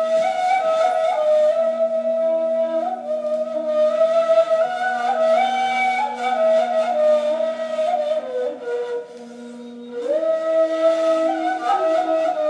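Two neys (end-blown reed flutes) playing together in Ottoman classical style: one holds a low sustained note as a drone while the other plays a melody above it in small, ornamented steps, with a breathy tone. The playing thins out about nine seconds in, then both come back in together.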